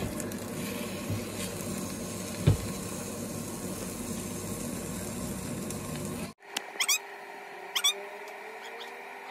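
Egg and spinach frying gently in a nonstick pan, a soft sizzle, with one knock of the spatula against the pan about two and a half seconds in. The sound cuts off abruptly about six seconds in, leaving a quieter steady hum broken by two brief runs of high rising chirps.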